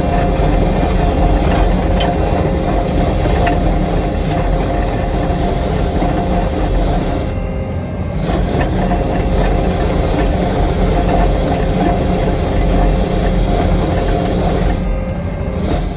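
Skid steer with a trencher attachment digging: the engine runs steadily under load while the digging chain churns through dirt with a dense mechanical clatter and a steady hum. The sound eases briefly about halfway through.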